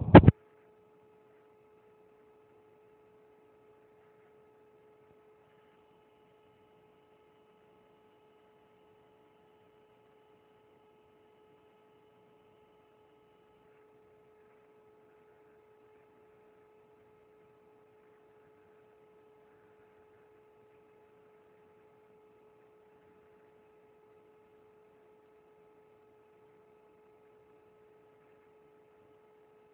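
Faint steady electrical hum, one even tone with fainter overtones above it; a loud rhythmic pulsing cuts off right at the start.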